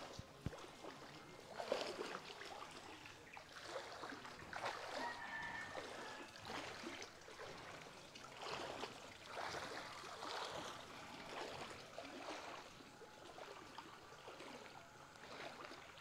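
Faint floodwater sloshing and trickling, in soft swishes that come and go.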